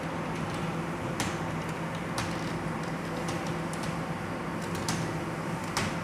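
Typing on a computer keyboard: keys clicking in an irregular run, a few strokes louder than the rest, over a steady low hum.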